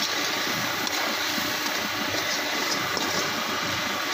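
Chicken karahi frying hard in hot oil in a karahi wok: a steady sizzling hiss with scattered small pops and crackles.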